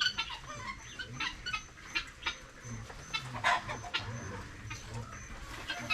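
Chickens clucking: scattered short calls at irregular intervals, one louder call about halfway through.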